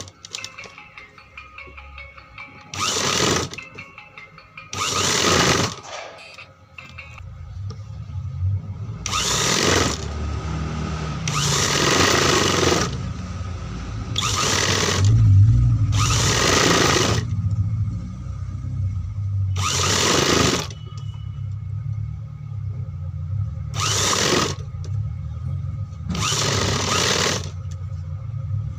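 Sewing machine stitching in about nine short runs of a second or less each, tacking facing strips around a suit neckline, with the machine's motor humming steadily between runs from about eight seconds in.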